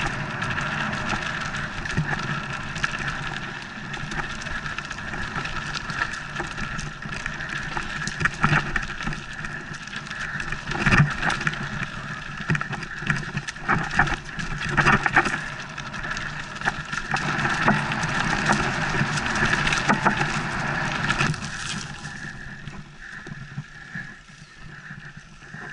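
Mountain bike riding fast down a rough dirt trail: a steady rush of tyre and riding noise with frequent sharp knocks and rattles as the bike hits bumps. It gets quieter about four seconds before the end as the bike slows.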